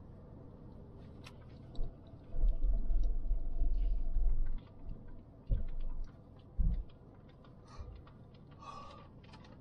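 Inside a Hyundai i20's cabin on a rough dirt track: low bumping thuds as the car jolts over the uneven surface, a long stretch about two seconds in and two short ones later. Scattered light ticks and rattles run throughout.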